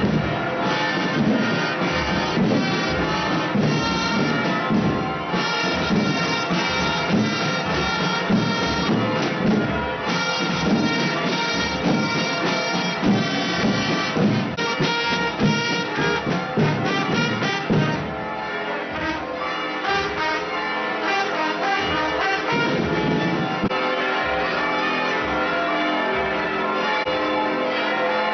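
A marching drum group beating a steady rhythm, with church bells ringing over it. About two-thirds of the way through, the drumming stops and the bells ring on alone.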